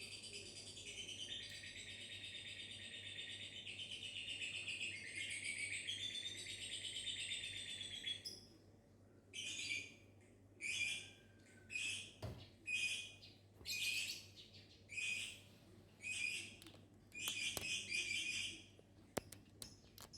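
Lovebird chattering in one long, continuous high trill, the 'ngekek' call, for about eight seconds, then breaking into a string of short chirps about once a second.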